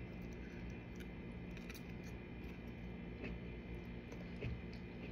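Quiet chewing of a forkful of green bean and tomato, heard as a few faint soft clicks over a steady low hum.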